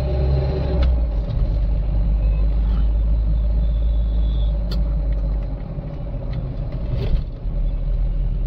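Mahindra Bolero diesel SUV on the move, heard from inside the cabin: a steady low rumble of engine and road noise, with a few faint clicks and rattles.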